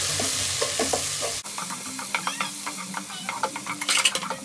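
Sliced onions sizzling as they fry in hot oil in a pot, stirred with a wooden spatula that scrapes the pan. The sizzle is loud at first, then drops abruptly to a softer level about one and a half seconds in.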